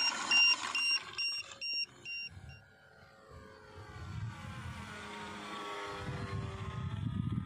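A run of short electronic beeps, coming faster, for about the first two seconds. Then a radio-controlled Piper J-Cub model airplane flies past, the whine of its motor and propeller falling in pitch over a low rumble.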